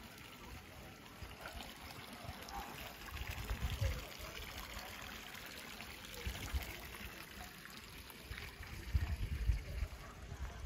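Public fountain water trickling and splashing into its stone basin, an even watery hiss. Two bouts of low rumbling, about three seconds in and near the end, are the loudest moments.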